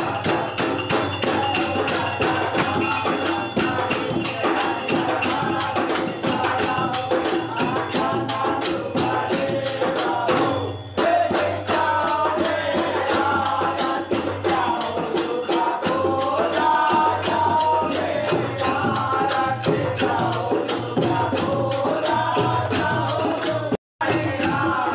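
Group of men singing a Hindu devotional aarti together, with two hand-played barrel drums, jingling percussion and hand clapping keeping a steady, fast beat. The sound dips briefly about halfway and cuts out for a moment near the end.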